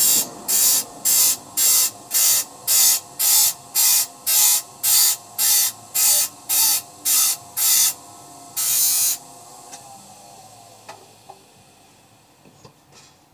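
Small electric grinder sharpening a hand saw's teeth one at a time: about fifteen short, loud grinding bursts, roughly two a second, over a steady motor hum. Near the middle comes one longer grinding burst, and then the motor hum fades away.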